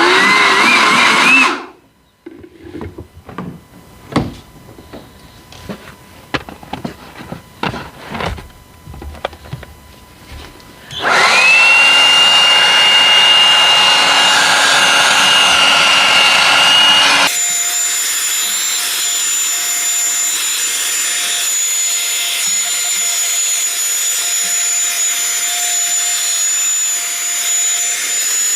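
Small cordless handheld blower/vacuum motor running with a high whine, cutting off, then a few seconds of clicking and knocking from handling the plastic unit. The motor starts again with a whine that rises as it spins up and then holds steady. About 17 s in the sound changes abruptly to a thinner, higher steady whine.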